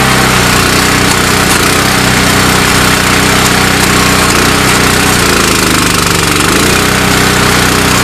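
Engine of powered digging equipment running steadily under load as the post holes are dug. Its pitch sags and recovers about five to six seconds in.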